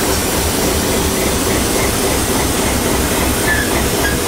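Locomotives at a station platform: a ČD class 742 diesel locomotive's engine running with a low, regular throb, mixed with the noise of the steam locomotive working alongside it. A few faint high squeaks come near the end.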